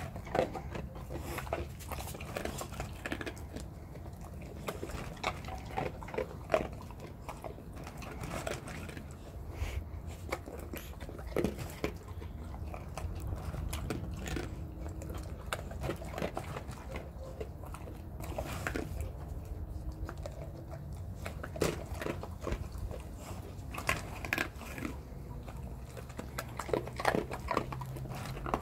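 Dogs crunching dry kibble at close range: irregular crunches and clicks through the whole stretch, over a steady low hum.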